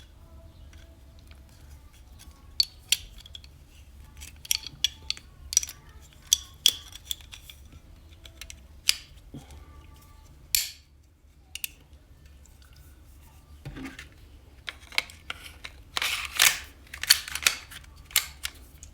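Sharp metallic clicks and clacks of a Smith & Wesson M&P 2.0 9mm pistol and its magazine being handled while it is checked clear. Single clicks come every second or so, pause for a couple of seconds, then a dull knock and a quick run of clacks near the end.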